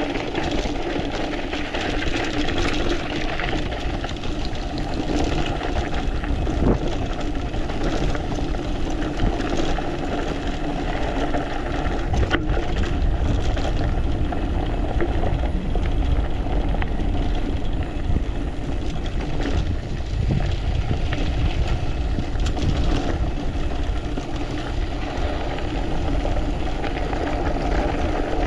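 Mountain bike descending a loose dirt and gravel trail at speed: wind rushing over the microphone and tyres rolling over gravel, with scattered clicks and knocks as stones and bumps are hit.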